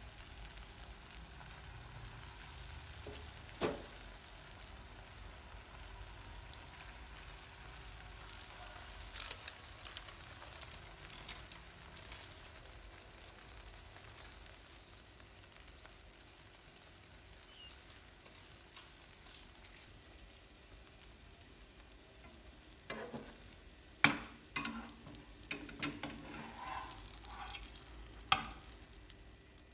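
Beaten egg frying in a nonstick pan, a faint steady sizzle. A few sharp taps of utensils on the pan, then a cluster of louder knocks and scrapes over the last several seconds as the omelette is lifted and turned with a spatula and chopsticks.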